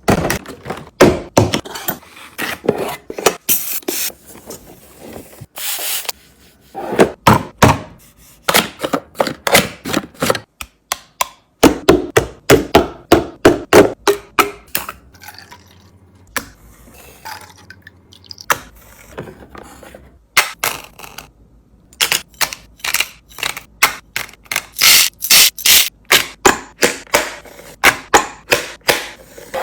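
Items being unpacked and set into a mini fridge: many quick knocks, taps and scrapes of containers and packaging, with a quieter stretch about halfway through.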